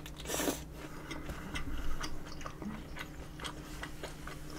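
Close-miked chewing of a mouthful of breaded cheese pork cutlet (cheese tonkatsu): irregular small crunches and wet mouth clicks, with a slightly louder bite-and-crunch about a quarter second in.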